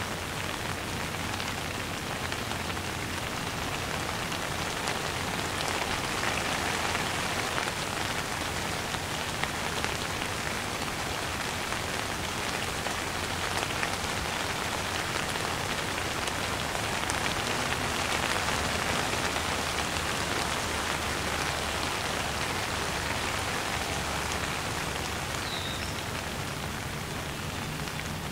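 Downpour of rain falling steadily, a dense, even hiss of countless drops.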